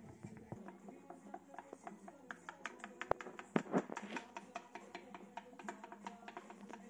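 Wooden chopsticks stirring batter in a ceramic bowl, knocking against the bowl in quick, irregular clicks that start about two seconds in.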